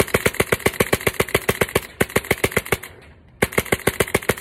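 Empire Resurrection Autococker-style paintball marker with a Tornado valve and Tech-T Hush bolt, fired in rapid strings of sharp pops at about nine shots a second. The firing stops for about half a second near three seconds in, then starts again.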